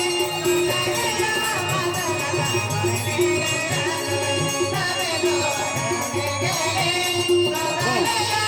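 Adivasi folk music: a wavering melody line over a steady rhythm with jingling, rattling percussion.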